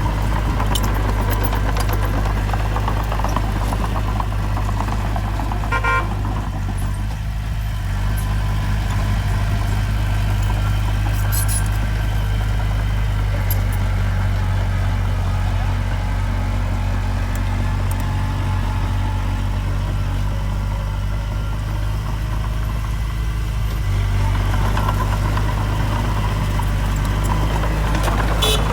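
Heavy earthmoving machine's diesel engine running steadily under a constant low hum, with a few short clicks over it.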